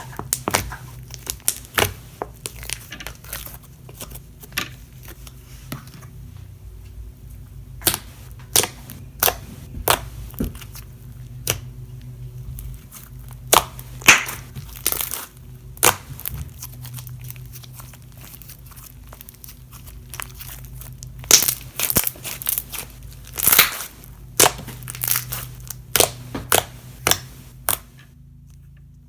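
Irregular crinkling, crackling and tearing of material being handled by hand, the sharp crackles coming in clusters, over a steady low hum.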